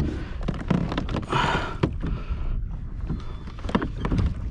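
Fishing kayak on open water: a steady rumble of water and wind on the microphone, with scattered knocks of gear on the hull and a brief hiss about a second and a half in.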